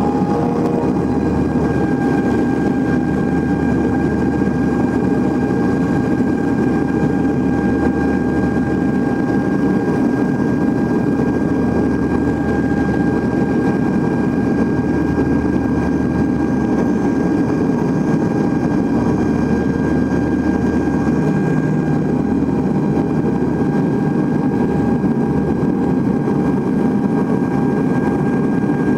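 Cabin sound of a NAMC YS-11's Rolls-Royce Dart turboprop engines at takeoff power: a loud, steady roar with a steady whine. A low rumble underneath drops away about three-quarters of the way through, as the wheels leave the runway.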